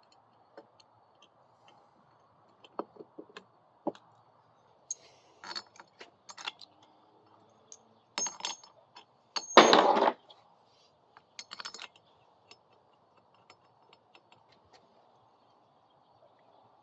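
Metal engine parts and hand tools clinking and clicking on a workbench while a small engine's head gasket and cylinder head are fitted, with one louder metallic rattle lasting under a second about nine and a half seconds in.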